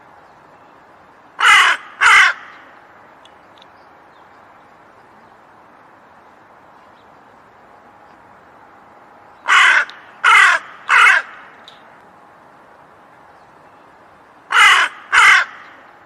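Hooded crow cawing: seven loud, harsh caws in short runs of two, three and two, with several seconds' pause between the runs.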